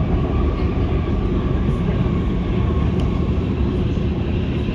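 Oslo Metro MX3000 train running between stations, heard from inside the car: a steady, loud rumble of wheels on the rails with a thin steady tone above it.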